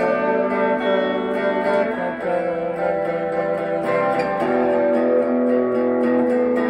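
Semi-hollow-body electric guitar played solo, picked chords ringing and sustaining, the harmony changing about two seconds in and again about four seconds in.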